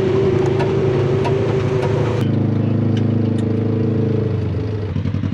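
Off-road buggy engine running steadily. Its note changes about two seconds in and drops back toward idle near the end.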